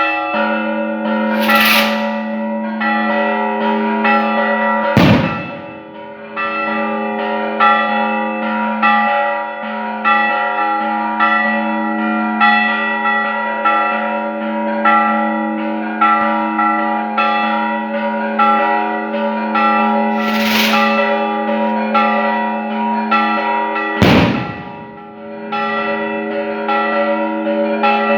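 Church bells ringing, struck again and again so their tones overlap and keep sounding. Twice a rushing hiss is followed a few seconds later by a sharp bang.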